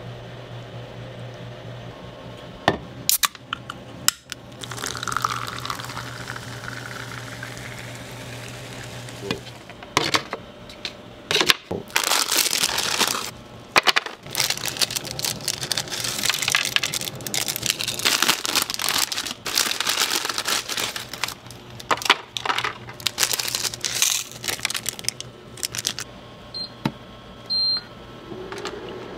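Instant ramen being handled and prepared: scattered clicks and knocks, crinkling, and stretches of rushing liquid, over a steady low machine hum. A short high beep sounds near the end.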